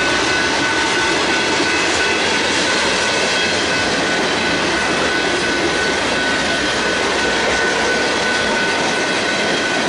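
Freight train of covered hopper cars rolling past, a steady loud rumble and rattle of wheels on rail, with a thin high-pitched tone held steadily over it.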